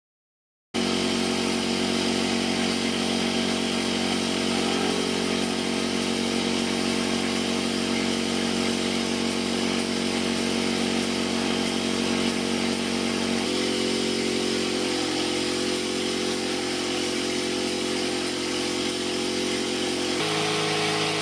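Electric air compressor running steadily under a paint spray gun, with the hiss of air from the gun over a mechanical drone. The tone changes abruptly about two-thirds of the way through and again near the end.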